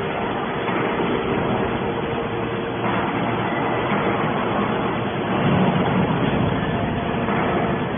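Horizontal hydraulic metal baler running: a steady machine noise with a constant hum, swelling louder for a moment about five and a half seconds in.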